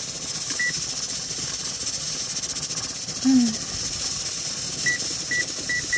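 Short, high electronic beeps from a Whirlpool electric range's timer keypad as its buttons are pressed: one about half a second in, then four in quick succession near the end. Under them, a steady hiss of steam from a pressure canner whose weighted regulator is on and rocking.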